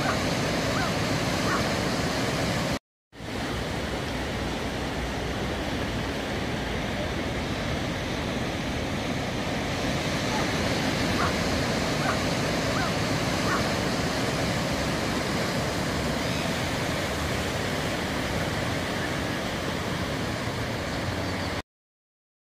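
Waves breaking on a rocky shore: a steady rush of surf. It drops out briefly about three seconds in and cuts off suddenly near the end.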